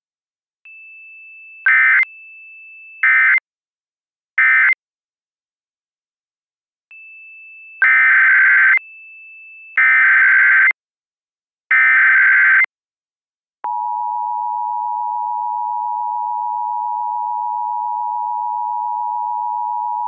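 Emergency Alert System tones. Three short, screechy SAME data bursts mark the end of the previous message. After a pause, three longer one-second SAME header bursts sound, with a faint steady high tone beneath the bursts. About fourteen seconds in, the steady two-tone EAS attention signal starts, announcing the next alert.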